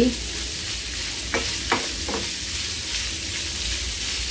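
Diced charque (dried salted beef) sizzling as it fries in a non-stick frying pan while a spatula stirs it, with a steady hiss and a few short knocks of the spatula against the pan between one and two seconds in.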